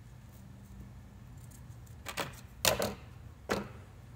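Three short clatters, starting about two seconds in and the middle one the loudest: scissors and a roll of cloth tape set down on a stainless steel bench.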